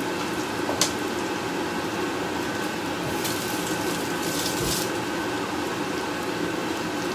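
Steady sizzle of shredded roast chicken frying in a pan, with a kitchen tap running into a stainless steel sink for a second or two about three to five seconds in.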